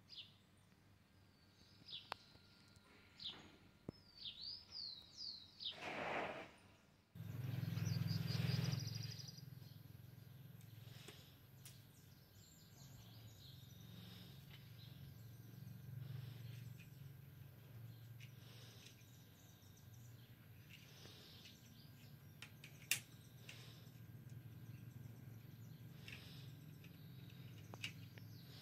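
Birds chirping with short gliding calls, then a steady low hum with faint scattered bird calls and one sharp click about two-thirds of the way through.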